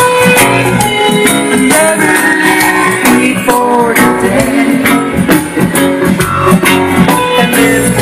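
Reggae band music with guitar and drum kit playing an instrumental passage between sung lines.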